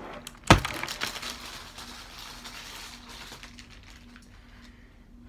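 A single thump on the desk about half a second in, then about two seconds of packaging rustling and crinkling that fades away.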